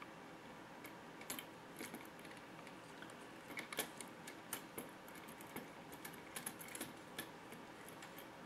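Small screwdriver turning a small screw to fasten an RC truck's rear axle assembly, with faint, irregular light clicks and ticks of the tool and parts.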